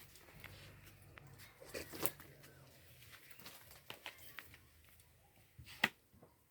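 Faint, scattered small clicks and taps, with one sharper click near the end.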